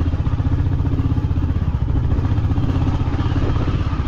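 Motorcycle engine running steadily with a rapid, even beat as the bike is ridden over a rocky dirt track.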